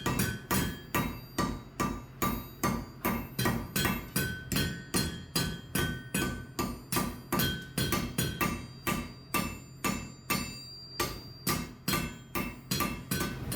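Blacksmith's hammer striking hot steel on an anvil in a steady rhythm, about three blows a second, each blow with a short metallic ring.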